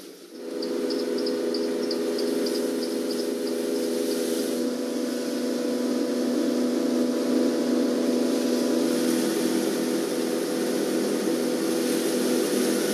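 Electric mill grinding dried turmeric into powder: a steady motor hum that starts about half a second in and runs evenly, with a light, rapid ticking over the first few seconds.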